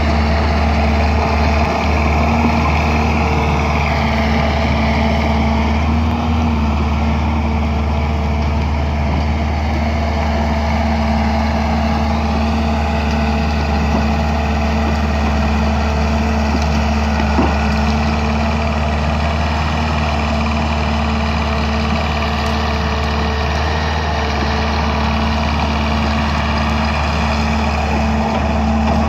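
Caterpillar bulldozer's diesel engine running steadily under load, a deep constant drone with a few brief shifts in pitch.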